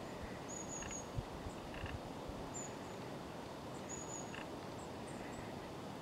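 Long-tailed tits calling: a scatter of short, thin, very high-pitched calls, some as quick little trills, with a few lower chips in between, over steady low background noise. A brief low thump sounds about a second in.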